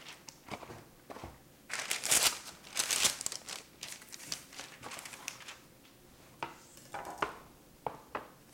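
Sheet of parchment paper crinkling and rustling as it is spread and smoothed flat on a metal baking sheet, followed by a few light knocks near the end.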